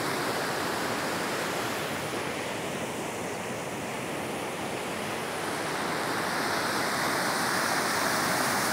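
Water rushing over the spillway of an overflowing reservoir, a steady rushing noise that grows louder toward the end.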